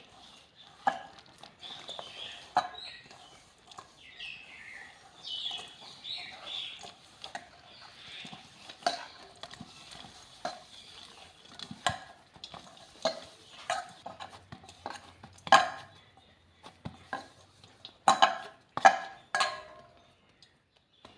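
Ragi flour dough being mixed and worked in a bowl: irregular scraping and clicking against the bowl, with a cluster of louder knocks near the end.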